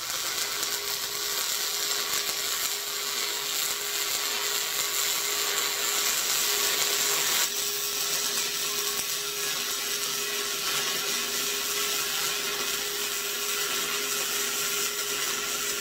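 Electric arc welding on quarter-inch steel: the steady crackling hiss of the welding arc as beads are laid on an axle truss, changing slightly about halfway through.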